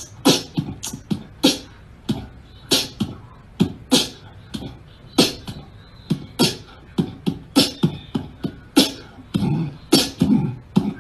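A cat retching: a string of sharp, irregular clicking hacks and gulps, roughly one or two a second, with deeper, fuller heaves near the end.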